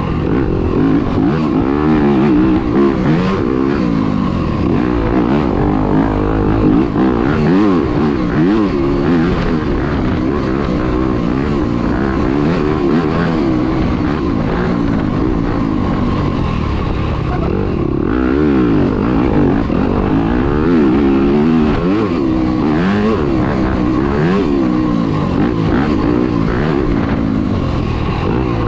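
Dirt bike engine ridden hard on a woods race trail, its pitch climbing and dropping over and over as the rider works the throttle and gears.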